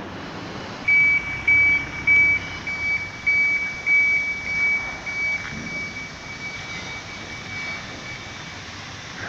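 A high-pitched electronic beeping, a single steady tone repeating about twice a second, that starts about a second in and fades out near the end, over a steady outdoor background noise.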